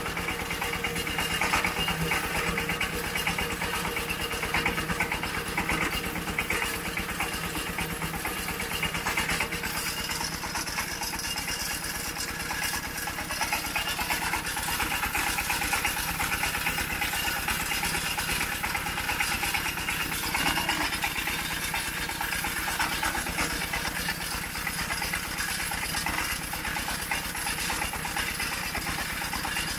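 A small engine running steadily at an even idle, its rapid firing pulses unchanged throughout.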